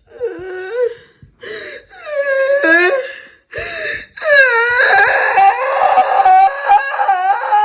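A woman wailing and crying in a string of drawn-out, high-pitched, wavering cries, ending in one long cry of about three seconds.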